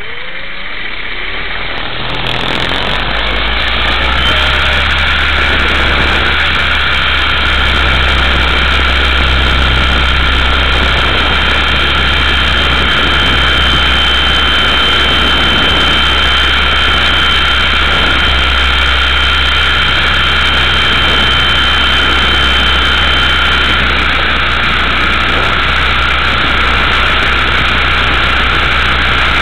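Electric motor and rotor of a Multiplex Funcopter RC helicopter, heard from its onboard camera. It spools up over the first few seconds, then runs steadily, a high whine over a low rumble.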